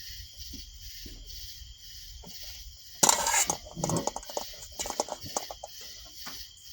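A steady, evenly pulsing high drone of insects runs throughout. About three seconds in, a loud scraping rustle begins, followed by a few seconds of clicks and knocks from handling things.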